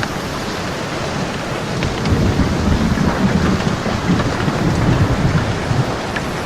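Steady rain with a low roll of thunder that swells about two seconds in and fades near the end.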